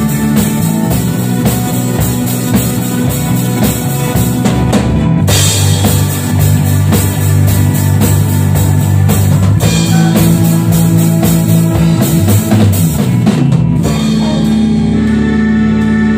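Sonor drum kit played with sticks along to a rock backing track with guitar and bass. The drumming stops about two seconds before the end, and the backing music carries on.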